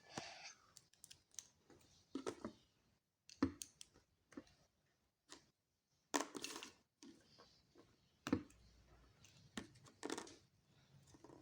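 Plastic Lego bricks being handled and pressed together: scattered short clicks and brief rattling rustles at uneven intervals.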